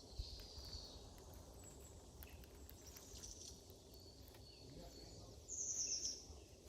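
Birds chirping in woodland, with one short, high, rapid trill near the end as the loudest sound. Under it is the faint crunch of footsteps in dry autumn leaves.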